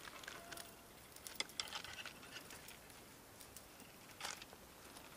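Faint, irregular clicks and taps, with a brief louder rustle about four seconds in, over a faint steady hiss.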